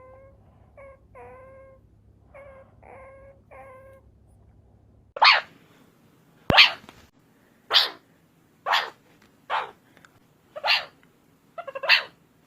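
Meerkat calls: first a run of short, pitched chirping calls, then, from about five seconds in, louder, harsh calls repeated roughly once a second.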